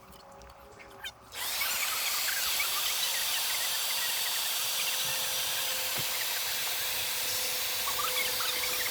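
An electric air pump switches on about a second in and runs steadily with an even rushing hiss, blowing air into an inflatable Air Skirts RV skirting tube.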